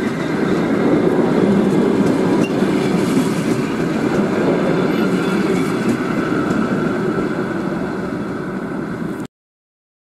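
Passenger train coaches rolling past close by, with a steady rumble of wheels on the rails. It grows a little quieter as the last coach goes by, then cuts off abruptly near the end.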